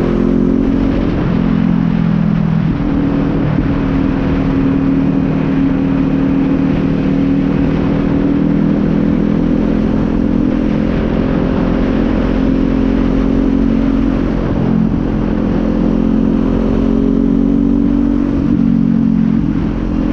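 Kawasaki Z400's parallel-twin engine running steadily under way, with its pitch dipping and shifting briefly a few times, about 2 s, 15 s and 18 s in.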